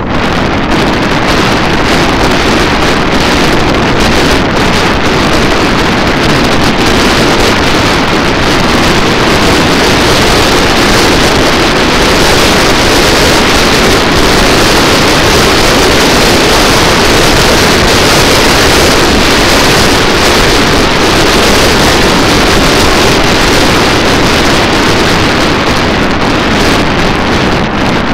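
Wind rushing over the microphone of a motorcycle-mounted camera while riding, mixed with the motorcycle's running engine: a loud, steady rush of noise.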